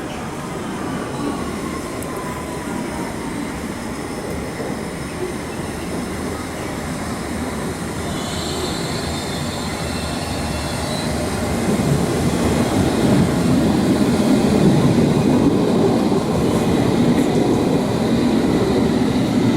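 Train running on the rails with steady rumbling noise. A brief high wheel squeal comes about eight seconds in, and the running noise grows louder from about twelve seconds.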